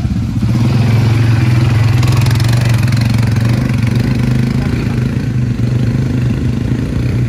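ATV quad bike engine running steadily at low speed, a little louder from about a second in and easing slightly in the second half.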